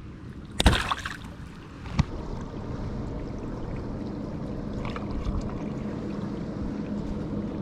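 A short burst of splashing water about a second in and a sharp knock on the kayak at two seconds, then the steady low hum of an electric trolling motor pushing the kayak along with water swishing past the hull.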